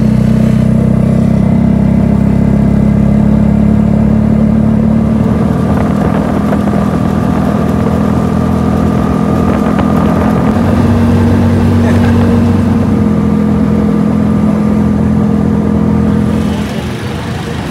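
Motorcycle rickshaw's small engine running steadily as it drives along, heard from a passenger seat. The engine note shifts slightly about ten seconds in and eases off near the end.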